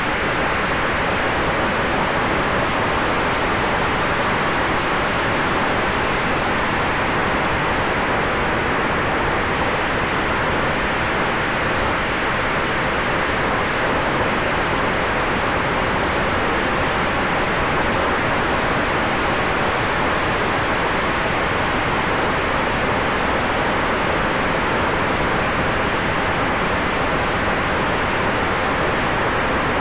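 Steady rush of wind and propeller noise on the onboard camera of an electric E-flite F4U Corsair RC plane in flight, with a faint steady whine from its motor and propeller under the hiss.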